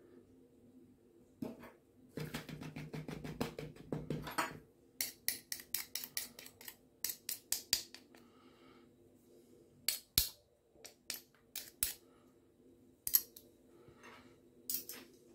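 Metal spoon stirring a dry oat-and-flour biscuit mixture in a plastic mixing bowl. A stretch of rapid scraping comes first, then a run of rhythmic scrapes, about three or four a second, then a few separate clicks of the spoon against the bowl.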